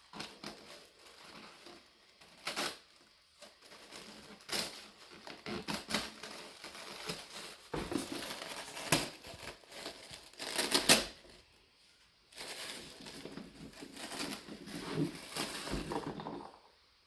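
Irregular clicking, tapping and crinkling of small objects being handled, with the loudest cluster of clicks about eleven seconds in.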